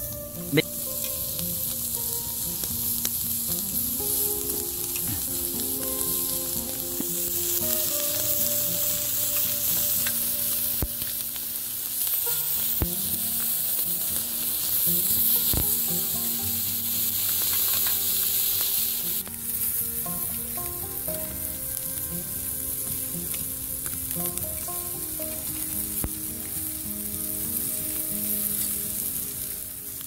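Marinated chicken wings sizzling on a hot cast-iron griddle pan over a campfire, with a sharp click of metal tongs on the pan near the start and a few fainter clicks later. The sizzle is strong at first and thins out about two-thirds of the way through.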